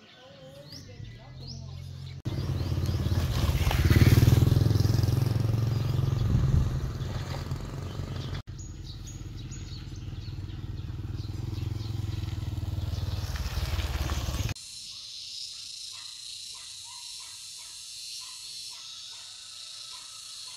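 Small motorbike engine running, rising to its loudest about four seconds in and then holding steady, before being cut off suddenly. After that, a steady high hiss with short bird chirps.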